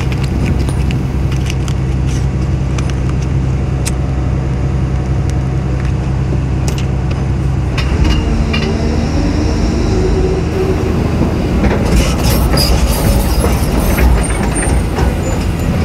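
Caterpillar 320D excavator's six-cylinder diesel engine running steadily under digging load, heard from inside the cab. About halfway through the sound shifts to the machine heard from outside, with a whining hydraulic pump and clattering knocks of the bucket working in rocky sand, thickest a few seconds before the end.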